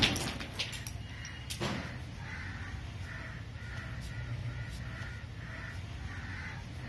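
The tail of a firecracker's bang dying away at the start, then a bird calling over and over, about two short calls a second.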